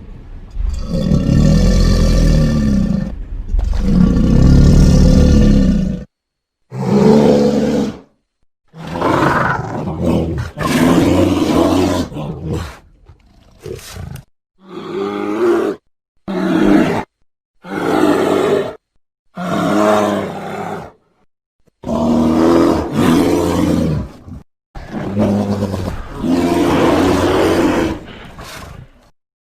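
A run of film and game dinosaur roar sound effects played one after another: about a dozen separate growling roars, each one to three seconds long, with short silent gaps between them.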